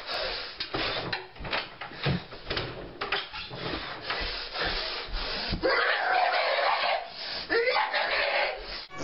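Thumps, scuffs and rustling of a person thrashing about a small bedroom and onto a bed, with a harsh drawn-out noise about six seconds in that ends in a rising cry.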